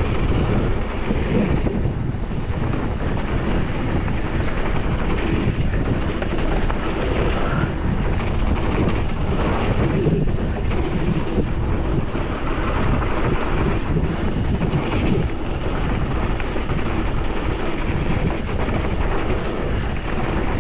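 Wind buffeting the microphone while riding a hardtail mountain bike down a dirt trail, mixed with the tyres rolling over packed dirt and leaf litter. The noise is steady and unbroken, heaviest in the low end.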